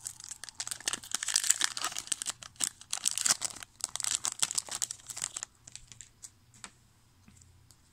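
Foil wrapper of a trading card pack crinkling as it is torn open and the cards are pulled out. The crackling stops about five and a half seconds in, leaving only a few faint clicks.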